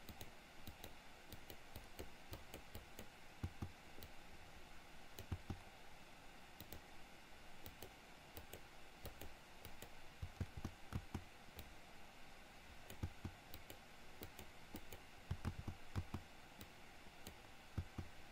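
Faint, irregular clicks and soft taps of computer input devices on a desk, over a steady low hiss.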